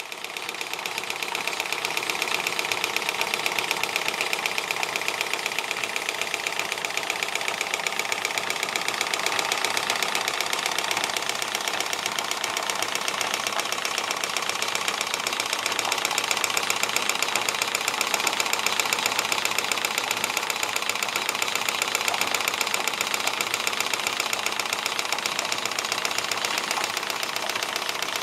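Model steam engines running, a Stuart D10 twin-cylinder engine and a Stuart beam engine, giving a fast, even clatter over a steady hiss.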